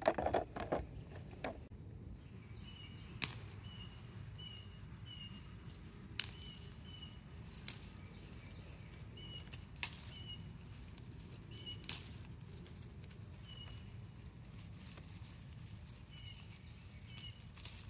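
Quiet outdoor ambience with a bird repeating short high chirps, and a few sharp snaps as hot-pepper stems are picked off the plant by hand.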